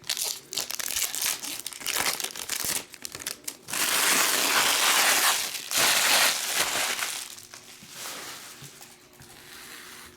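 Trading card pack wrapper being crinkled and torn open by hand, in irregular rustles that grow into a loud continuous crinkle for a few seconds in the middle, then die down.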